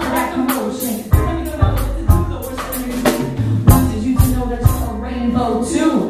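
Live band playing: a drum kit keeps a steady beat of about two hits a second under bass and electric guitar, with a vocal line over it.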